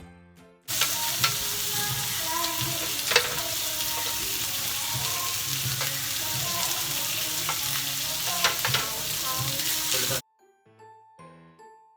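Pork belly sizzling loudly on a hot grill plate, a steady hiss with a few sharp clicks. It cuts in just under a second in and cuts off suddenly near the end, with background music before and after.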